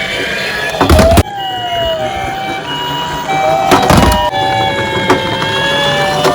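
Several toy fire-engine and ambulance minicars' electronic sirens sounding together: wailing tones that glide up and down over two-tone hi-lo tones that switch back and forth. Loud knocks cut in about a second in, around four seconds in and at the very end.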